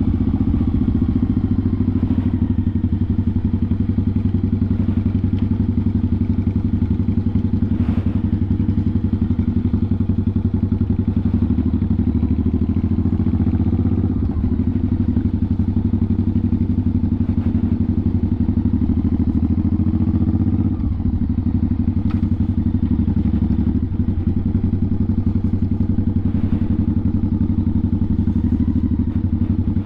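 1986 Honda Shadow 700's V-twin engine running at low, steady revs as the motorcycle rolls along, heard from the rider's seat. The engine note dips briefly three times.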